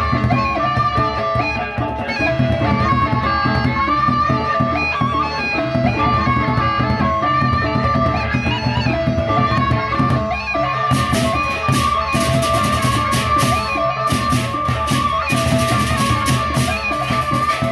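A Sasak baleganjur gamelan ensemble plays: large double-headed drums beat under a row of small kettle gongs ringing steady pitches. About eleven seconds in, massed hand cymbals come in with fast, dense clashing.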